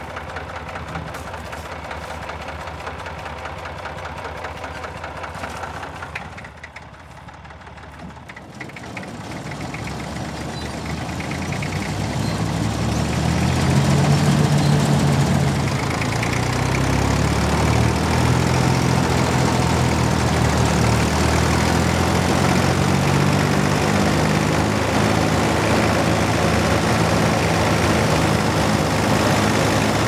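Fordson Super Dexta diesel tractor engine driving a JF MS5 combine harvester, running at low speed at first. From about nine seconds in it speeds up over several seconds, then runs steadily at a louder working speed.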